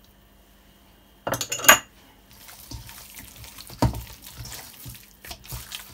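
A metal spoon clinks briefly with a ringing clatter about a second in. Then hands rub and squish wet marinade into raw rump steak in a stainless steel bowl, making soft wet slapping sounds.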